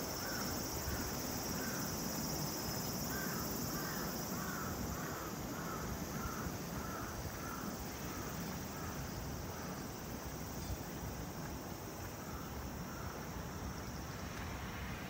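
A crow calling in a run of short caws, about two a second, through the first half, over a steady high insect drone and a low city hum.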